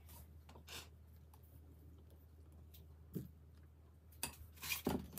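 A few soft, short scrapes and squelches of a spatula scooping whipped cream from a bowl and spreading it on a cake, the busiest and loudest near the end.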